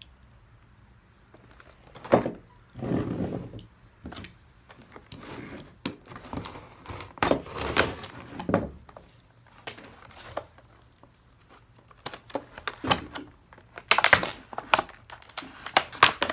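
A Bessey 3/4-inch pipe clamp being unpacked and handled: packaging rustling, with irregular knocks and clinks of the metal clamp parts. A sharp knock comes about two seconds in, and a cluster of them near the end.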